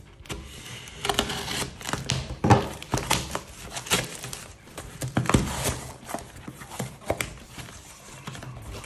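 A cardboard parcel wrapped in packing tape and plastic film being cut open with a folding knife and torn apart by hand: a run of irregular rips, scrapes and crinkles, ending with paper rustling.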